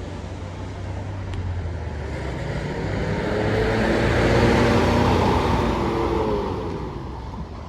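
A road vehicle driving past: its engine and tyre noise builds to a peak about four to five seconds in and then fades, the pitch dropping as it goes by. A low steady engine hum runs under the first two seconds.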